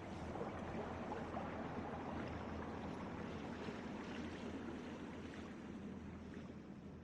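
Water fountain splashing steadily, slowly fading toward the end.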